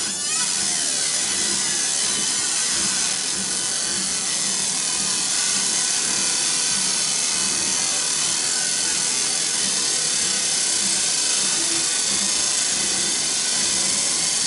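Laser marking machine engraving: a loud, steady, high hissing buzz as the beam burns into the workpiece, starting abruptly.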